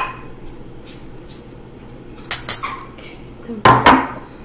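Metal utensils and dishes clinking and being set down: one sharp clink at the start, two more a little over two seconds in, and the loudest pair near the end, each ringing briefly.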